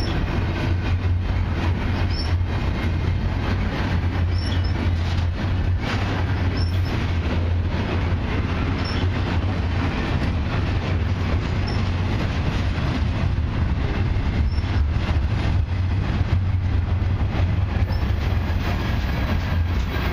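Freight train cars, double-stack container cars and then gondolas, rolling steadily past: a continuous rumble of steel wheels on the rails, with faint short high squeaks now and then.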